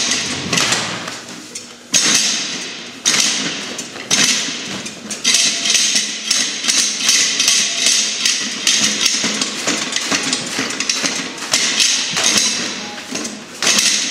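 Heavy battle rope slapping against a concrete floor in repeated impacts. The slams come about a second apart at first, quicken to a run of about three a second through the middle, then space out again near the end.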